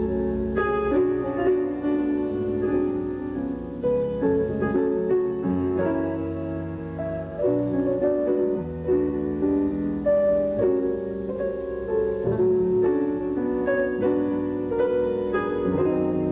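Piano music, a steady run of notes with no break.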